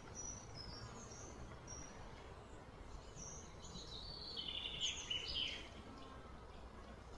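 Faint outdoor ambience with small birds chirping: short high chirps scattered throughout, and a louder run of chirps about four to five seconds in, over a low steady background rumble.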